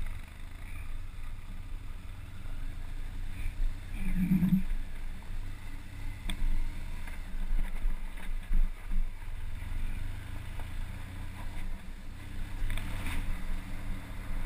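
Off-road vehicle engine running at low speed in a low gear while crawling up a rocky trail, a steady low rumble with scattered knocks and rattles, and a short louder hum about four seconds in.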